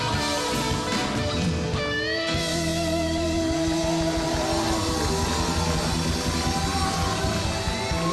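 Live band music with guitar, long held notes over a steady backing, in the last bars of a sung Hindi song.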